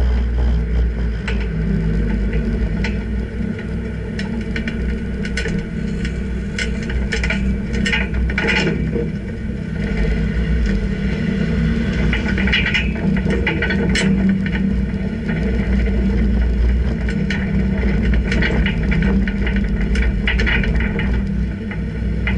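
Car driving slowly along a street: a steady low engine and road rumble with scattered rattles and clicks.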